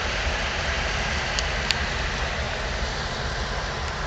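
Steady rumble and hiss on the deck of a Nile cruise ship under way, with two short faint ticks about a second and a half in.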